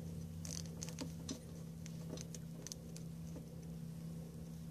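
Scalpel-type knife cutting a plastic zip tie, heard as faint, scattered ticks and small scrapes as the blade is worked down one side of the tie and then the other to trim it flush.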